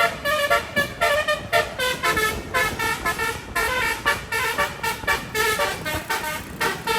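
Bus telolet horn, a 12-note stereo set of 24 air-horn trumpets, playing a fast melody of short pitched notes one after another with barely a break.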